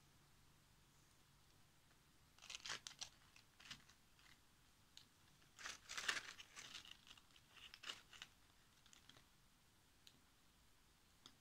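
Faint, short crackling rustles of dry plant material (a dried berry twig and dry leaves) being handled and set down on a woven mat over newspaper, in a few separate bursts, the loudest about six seconds in.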